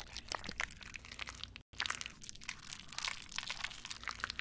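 Whipped cream being piped and spread onto a cake, heard as a dense run of small crackles and crunches. A brief break comes about one and a half seconds in.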